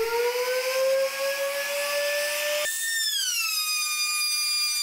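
Router motor in a router table with a flush-trim bit, spinning up: a whine rising in pitch. About two and a half seconds in it changes suddenly to a higher whine that drops a little and then holds steady.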